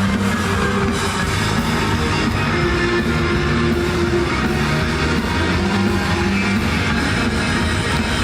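Rock band playing live, led by guitar, loud and continuous.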